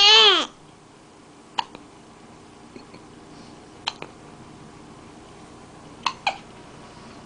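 Hiccups: short, sharp "hic" sounds about every two seconds, the last two in quick succession. They follow a brief loud voiced cry that rises and falls in pitch right at the start.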